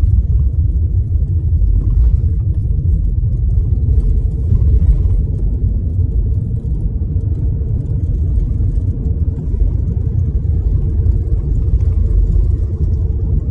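Steady low rumble of a car driving on a snow-packed road, heard from inside the cabin: tyre and road noise with the engine underneath.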